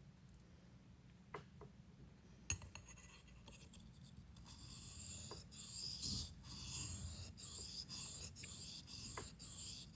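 Steel knife blade stroked back and forth on a wet 1000 grit whetstone: a rhythmic, high-pitched hissing scrape, about one to two strokes a second, that starts about halfway through. A single knock comes just before.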